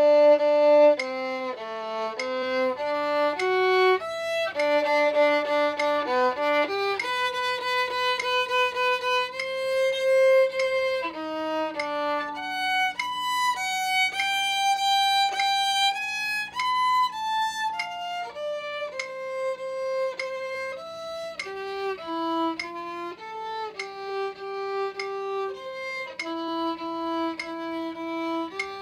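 Solo violin playing an etude: a single melodic line of quick, separately bowed notes and runs, with a few longer held notes.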